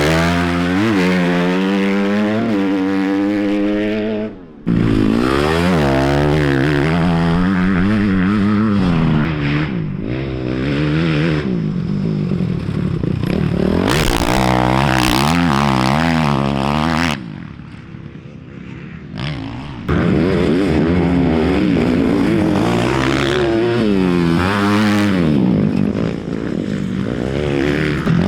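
Off-road racing dirt bike engines revving hard, the pitch climbing and dropping again and again as the bikes accelerate and shift through gears, with abrupt changes where the footage cuts between bikes.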